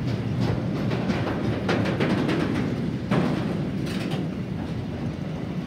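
Tank wagons of a freight train rolling past close by: a steady rumble of steel wheels on rail, with repeated clicks and knocks from the wheelsets, the loudest knock about three seconds in.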